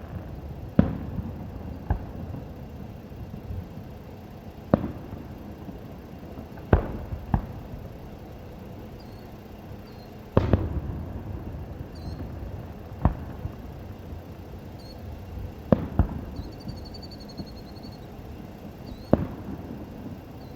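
Aerial fireworks shells bursting: about ten sharp booms at irregular intervals of one to three seconds, each trailing off in a low rolling rumble.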